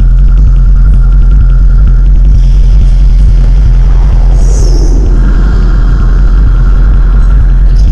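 Loud, deep rumbling drone of an electronic noise soundscape used as dance accompaniment. Fast ticking runs over it for the first couple of seconds, a sweep falls in pitch about halfway through, and a thin steady tone follows.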